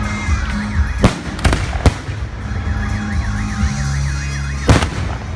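Fireworks going off: four sharp bangs, three close together about a second in and one near the end. Between them a warbling, siren-like tone rises and falls several times a second, over steady low music.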